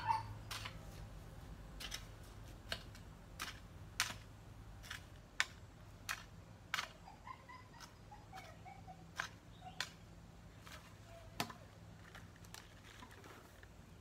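Long-handled garden hoe chopping into soil and cut weeds: sharp, irregular strikes, roughly one a second.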